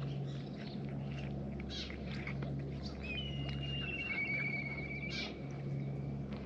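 Several cats chewing and smacking as they eat from a shared tray of food, with a steady low hum underneath. About halfway through, a thin high whistle lasts for around two seconds.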